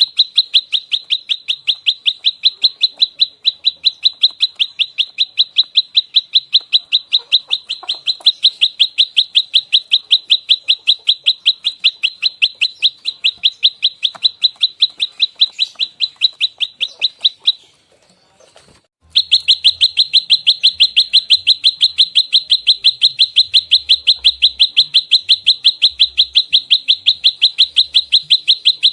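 Prenjak lumut (a prinia) giving its rapid fighting call, 'nembak rapat': a fast, even train of sharp high chirps, about five a second. The chirps break off briefly about two-thirds of the way through, then resume slightly louder.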